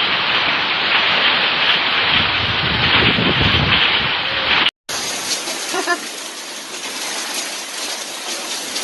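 Storm water noise: heavy rain and rushing water as a dense, steady hiss. About halfway it cuts off abruptly and a different, thinner and quieter wash of water noise follows.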